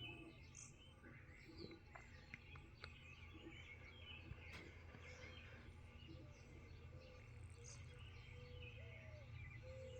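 Faint bird chirps scattered throughout, over a steady low hum.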